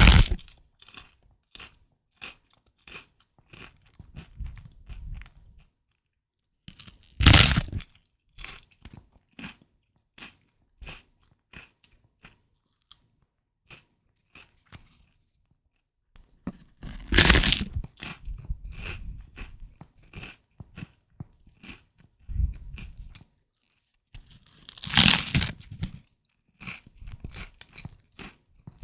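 Puffed rice being crunched and chewed close to the microphone: runs of crisp, crackly chewing crunches, broken by four louder crunches about eight to ten seconds apart and short silent pauses.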